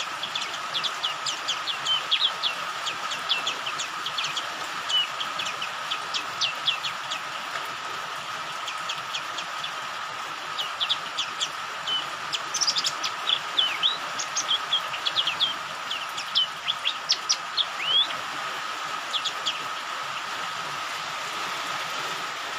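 White-eye (pleci) giving rapid runs of short, high chirps, a lure call used to set other white-eyes singing, over a steady hiss of rain. The chirping pauses for a few seconds in the middle and stops near the end, leaving only the rain.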